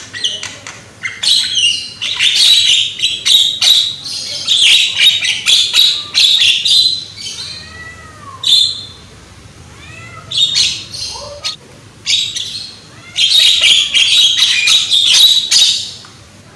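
Young Javan myna (jalak kebo) calling loudly in harsh, rapid chattering squawks. The chatter comes in bursts, with a lull in the middle where a few short arching whistle notes sound, then another loud burst near the end.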